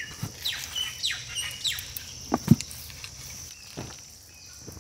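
Birds calling around the spot with short, quick falling chirps over a steady high insect drone, with a few soft knocks and one dull thump about two and a half seconds in.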